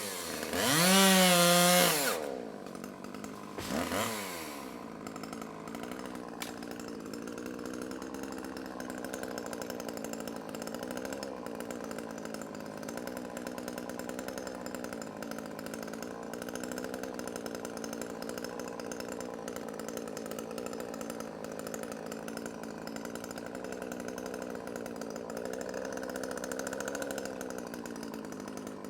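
Chainsaw revved hard near the start, its pitch swinging up and down, with one shorter rev a couple of seconds later; it then runs steadily at a lower, even speed.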